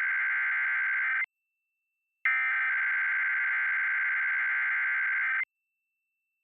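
Emergency Alert System SAME header data bursts, a two-tone digital buzzing screech that encodes a Required Weekly Test. The tail of one burst cuts off about a second in, and after a second of silence another burst of about three seconds plays and stops abruptly.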